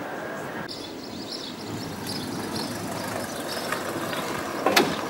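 Outdoor town-street ambience: a steady hum of background noise with faint high chirps, and one sharp knock a little before the end.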